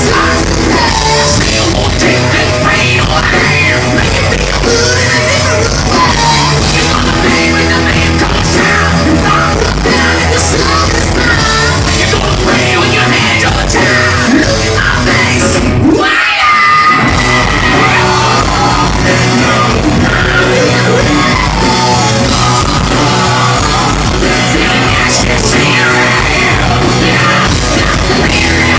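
Loud rock band playing with a singer yelling and singing over it. The bass and drums drop out for about a second halfway through, under a held high vocal note.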